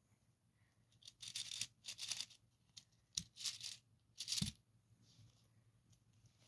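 Lego Technic pieces being handled and moved over carpet: about five short, rough scraping rustles in the first two-thirds, the last one ending with a soft thud.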